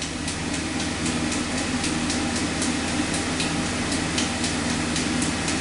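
An electric grinding machine comes up to speed and runs steadily while the steel blade is shaped, with a hum and light regular ticks about four times a second.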